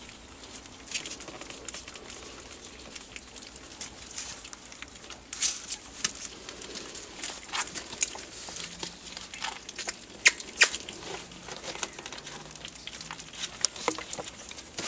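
Four-week-old Pomeranian puppies eating canned puppy food together from one bowl: wet smacking and lapping heard as irregular sharp clicks, the loudest a little past the middle.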